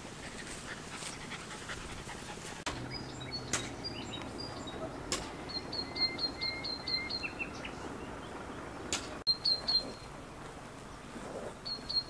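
Animal calls: quick runs of short, high chirps, about seven a second, repeating several times, with a few sharp clicks in between.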